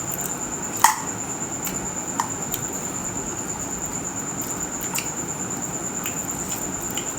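Close-up eating sounds: chewing and mouth smacks with a few short, sharp clicks, the loudest just under a second in. A steady, high, finely pulsing cricket trill runs underneath.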